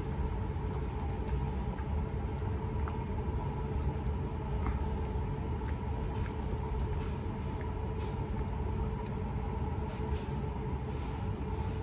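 A person eating a fried chicken sandwich: faint, scattered small clicks and rustles of chewing and handling the sandwich and its paper wrapper over a steady low room hum.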